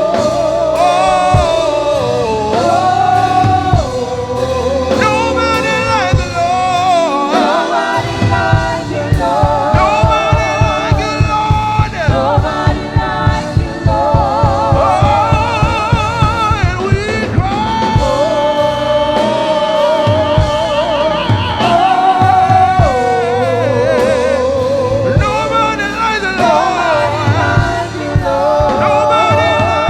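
Live gospel music: singers holding long notes with vibrato over a band with a steady drum beat.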